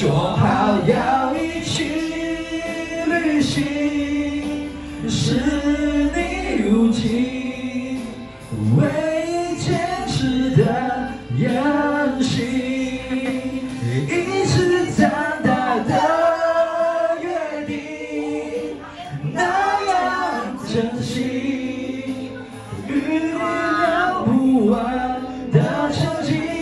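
A group of people singing together, men's and women's voices mixed, with long held notes.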